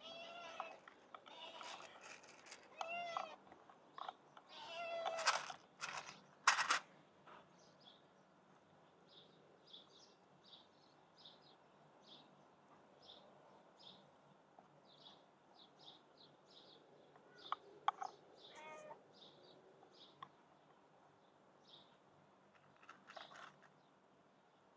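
A hungry tabby street cat meowing for food, several meows in quick succession over the first seven seconds and a couple more later, each call falling in pitch at the end. Two sharp knocks, the loudest sounds, come between the meows.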